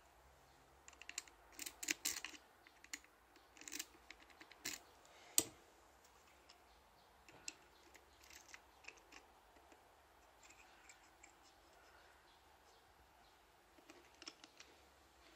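Metal clicks and light taps of a lock-pick tool being handled and fitted into a Cisa Astral euro cylinder. A dense run of sharp clicks comes in the first five seconds, ending in one louder click, then sparser soft clicks follow as the tool is worked in the lock.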